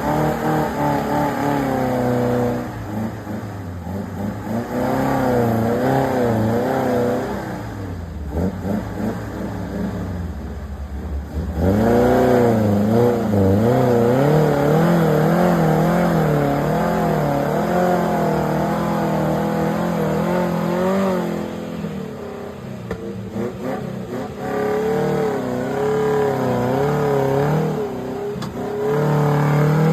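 Off-road vehicle engine working hard, its revs rising and falling over and over about once a second. It is loudest in the middle stretch.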